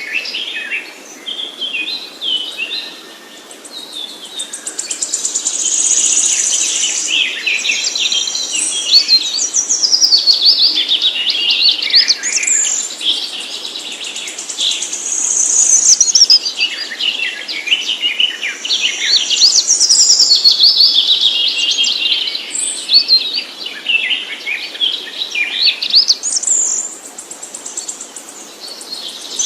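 Songbirds singing: a dense run of quick chirps and sweeping trills, high-pitched, with overlapping phrases that swell and fade.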